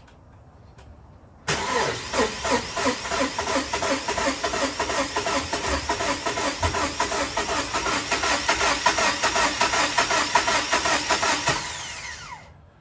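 Starter cranking a Ram 1500's 5.7 Hemi V8 in an even chug of about four beats a second for roughly eleven seconds, without the engine firing, then stopping. This is the crank-no-start fault still there after a new crankshaft position sensor.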